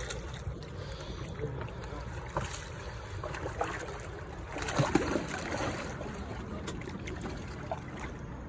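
Water lapping and splashing against shoreline rocks as a paddlefish is held in the shallows, with one louder splash about five seconds in.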